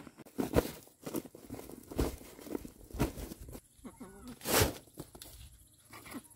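Woven plastic sack of soil rustling and crinkling as it is handled, with irregular sharp scuffs of soil and sack, the loudest about four and a half seconds in.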